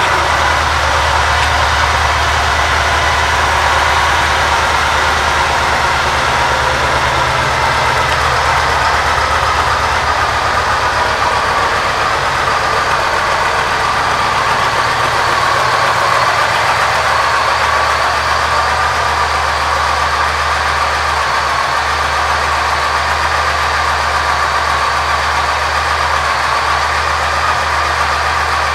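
2006 Yamaha Roadliner's 1854 cc air-cooled V-twin idling steadily, with an even, unchanging beat.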